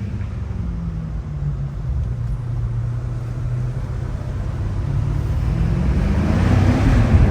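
BMW M5 Competition's twin-turbo V8 heard from inside the car, running low and steady, then rising in pitch and getting louder over the last two seconds or so as it accelerates.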